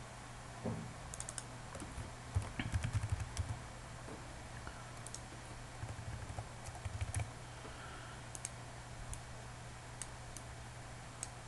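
Computer keyboard typing in two short runs of keystrokes, followed by scattered single clicks, over a steady low hum.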